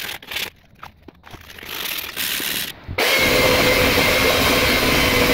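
Rustling and scraping as a sheet of sandpaper is handled, then about three seconds in an electric belt sander comes in abruptly and runs steadily, a loud even whine over the noise of the belt on wood.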